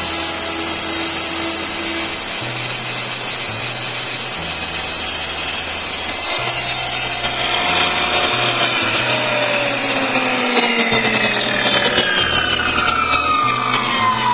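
Montolit Tornado 970T electric tile saw running with a steady high whine, then spinning down over the second half, its pitch falling steadily. Background music with a bass line plays throughout.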